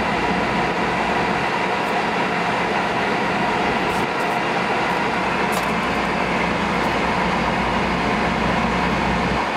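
A ferry's engines running, a steady mechanical drone with a low rumble and a few held tones over it.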